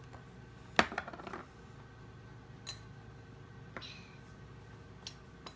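Small plastic toy bowls and cups knocking together as they are handled: one sharp clack about a second in with a brief rattle after it, then a few lighter clicks spread through the rest.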